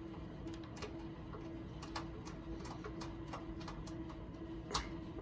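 Scattered small clicks and taps from hands and a screwdriver working on a graphics card in a PC case, the loudest near the end, over a steady low hum from the room's air conditioner.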